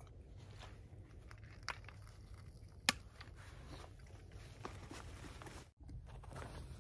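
Small crunches and clicks of boots shifting on snow, twigs and dry leaves, with a few sharper clicks, the loudest about three seconds in.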